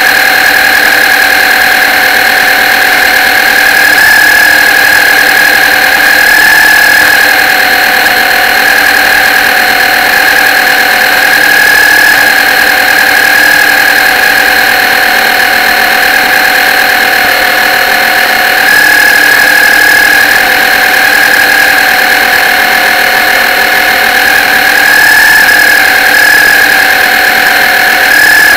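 RC model boat's motor running steadily, heard close up from on board: a loud, continuous whine whose pitch and loudness waver slightly with the throttle.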